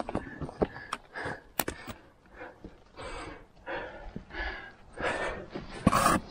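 A person breathing hard in short gasps and sighs while scrambling up a steep rocky gully, with a couple of sharp knocks about a second and a second and a half in.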